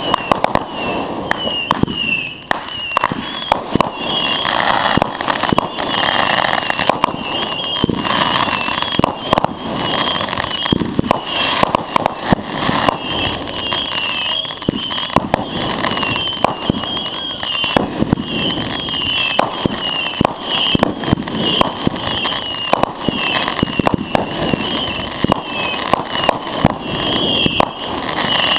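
Consumer fireworks going off in rapid succession: a dense, irregular string of sharp pops and crackles, with a repeated high chirping running under them.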